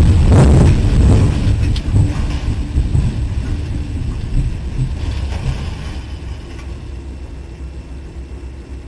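Tornado winds rushing and rumbling against the microphone. The sound is loudest in about the first second, then dies down steadily to a low rumble.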